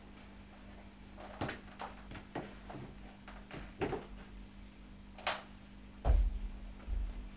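Knocks and clunks of a cabled electric guitar being taken off and set down against a chair, over a steady low hum. Louder, deep thumps of footsteps come about six seconds in.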